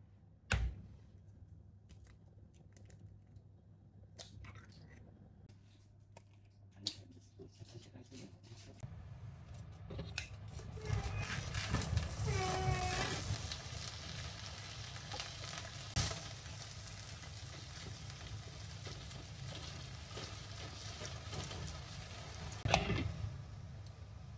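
An egg knocked against a glass bowl with a sharp crack, a few small clicks, then squid frying in hot sesame oil in a frying pan: a sizzle that starts about nine seconds in and grows louder, stirred with wooden chopsticks, with a knock near the end.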